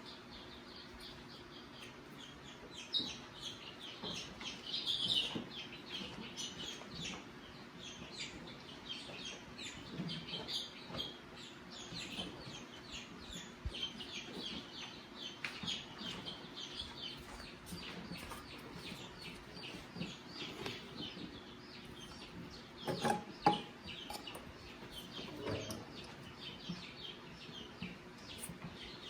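Birds chirping continuously in the background, with two or three sharp knocks about three-quarters of the way through from hand work on an ATV starter. A faint steady hum runs underneath.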